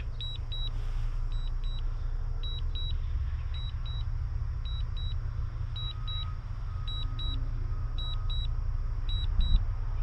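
DJI Mavic Mini remote controller beeping during return-to-home: short high double beeps repeating about once a second, over a steady low rumble.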